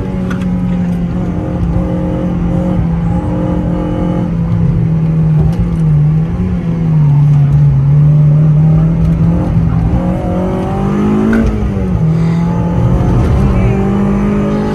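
Honda Civic Type R FD2's K20A four-cylinder engine running hard, heard from inside the cabin. Its note sags and recovers, climbs sharply about eleven seconds in and drops back abruptly, over steady road noise.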